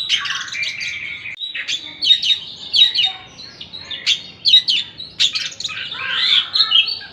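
Oriental magpie-robin (kacer) singing a varied, busy song of quick whistles, chirps and sweeping notes.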